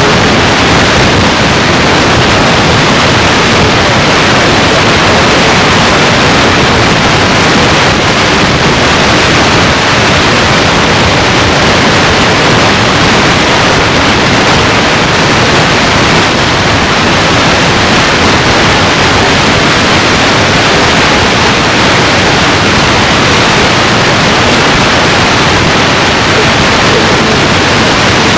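Loud, steady static hiss with no speech, running evenly without change.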